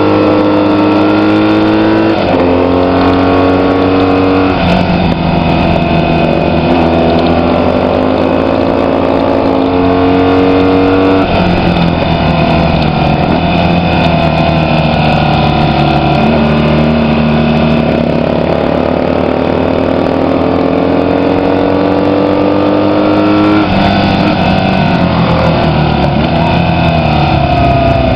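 Vintage racing motorcycle engine at full throttle, heard from on board. Its pitch climbs steadily and drops back several times at each gear change, over a steady rush of wind.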